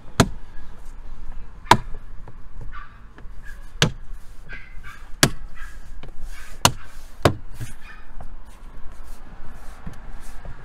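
Tesla Model Y's plastic cowl air-intake cover being pressed down by a gloved palm as it is pushed home onto its fastenings. About six sharp clicks and knocks come at uneven intervals, with soft rubbing of the glove on the plastic between them.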